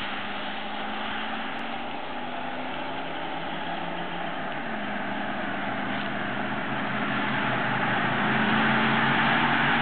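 Ford F-150 Lightning pickup's V8 engine running, with a steady road-and-engine hum that grows louder over the last few seconds.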